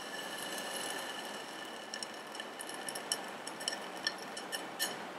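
Hydrated zinc sulfate crystals crackling in a glass test tube as they are heated very strongly, giving sharp ticks and pops. The pops begin about two seconds in and come faster and louder toward the end, over the steady hiss of the Bunsen burner.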